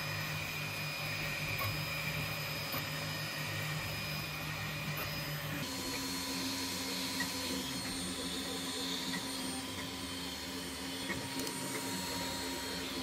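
TwoTrees SK1 CoreXY 3D printer running a print: a steady whir of its fans and motors. The tone of the hum shifts abruptly about halfway through.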